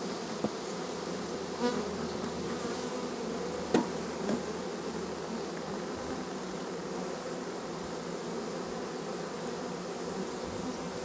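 A mass of honey bees from an opened hive buzzing steadily, a dense hum. A couple of sharp clicks cut through it, the loudest about four seconds in.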